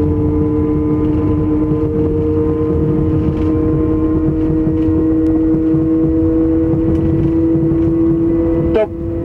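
Thalys high-speed train heard from inside the driver's cab: a steady low rumble with two humming tones that slowly rise in pitch as the train gathers speed. A short click and a brief dip in level come near the end.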